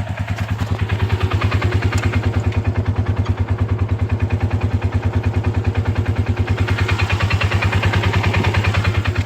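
A small engine running steadily close by, its exhaust pulsing fast and evenly, growing louder over the first second and then holding.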